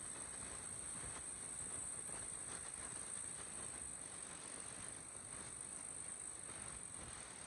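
Kubota M6040 SU tractor's four-cylinder diesel engine running under load as it pulls a disc plough through heavy clods of soil, with a steady high hiss over it.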